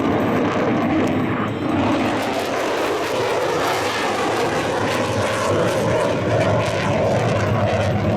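F-35C Lightning II fighter jet flying its airshow display, its single Pratt & Whitney F135 afterburning turbofan making a loud, steady noise whose pitch drifts slowly.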